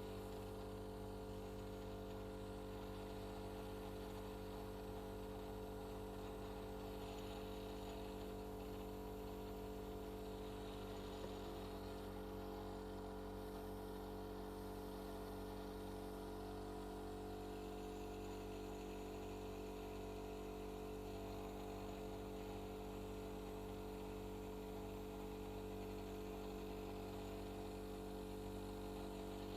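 Steady electrical mains hum, several fixed tones over a low drone, unchanging throughout.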